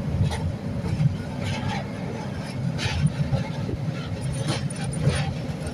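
Kangra Valley narrow-gauge toy train running, a steady low rumble with repeated sharp clacks of the wheels on the rails.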